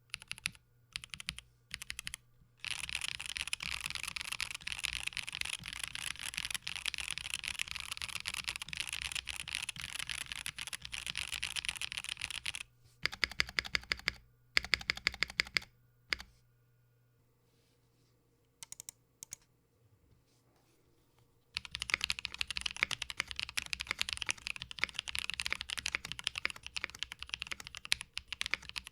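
Blade60 mechanical keyboard with Technoviolets linear switches, a PC plate and GMK keycaps being typed on: short groups of keystrokes, then a long run of fast typing. It pauses about halfway, with a few louder clacks and a near-quiet stretch broken by single key presses, and fast typing starts again near the end.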